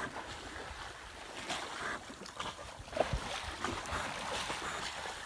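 Water sloshing and lapping against a small yacht's hull, with a few faint splashes and a low thump about three seconds in, and light wind on the microphone.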